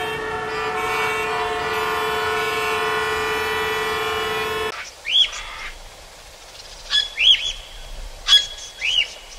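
A vehicle horn held on one steady, rich tone for almost five seconds, cutting off suddenly. A bird then gives several short chirps, each rising and falling in pitch.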